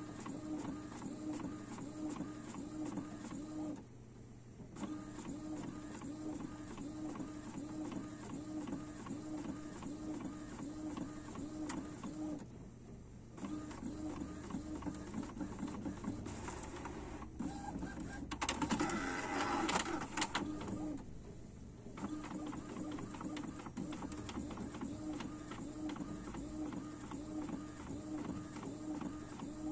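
Epson inkjet printer printing, its print head shuttling back and forth in a steady rhythm. The rhythm breaks off in short pauses about every eight to nine seconds, and there is a louder, harsher stretch about two-thirds of the way through.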